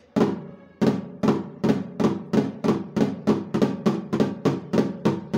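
Flams played with drumsticks on a snare drum: a run of strokes that gradually speeds up to about four a second, each with a short ring.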